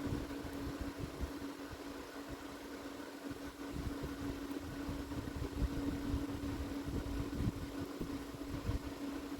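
A steady machine hum, one even tone over a shifting low rumble.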